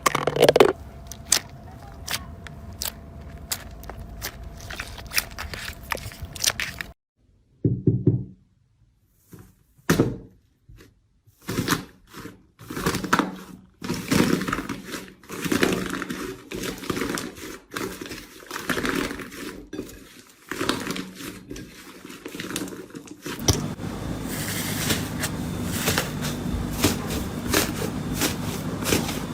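Slime being handled by hand, pressed, poked and squeezed, making a run of sticky clicks, pops and squelches. The sound changes abruptly about seven seconds in and again near twenty-three seconds, as one slime clip gives way to another.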